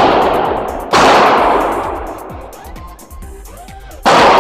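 Beretta M9 9mm pistol shots on an indoor range, one about a second in and another near the end, each sharp crack followed by a long echoing decay. The echo of a shot fired just before is still fading at the start.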